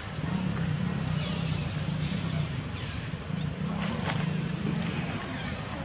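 Low droning hum of a distant engine in two long stretches, with a few short, faint high chirps over it.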